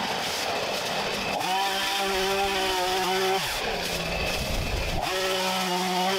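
Chainsaw cutting bamboo stems, revving high, dropping back about three and a half seconds in, then revving up again about five seconds in.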